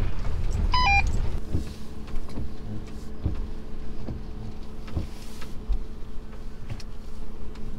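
Camper van driving slowly over a bumpy track: a steady engine hum with repeated short knocks and rattles from the van on the rough ground. A short run of stepped electronic beeps sounds about a second in.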